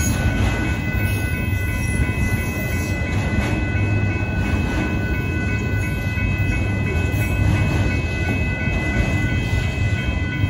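Union Pacific autorack freight train rolling steadily past a grade crossing: a loud, even rumble of the cars with faint clicks of wheels over the rail joints, and the crossing's warning bell ringing steadily over it.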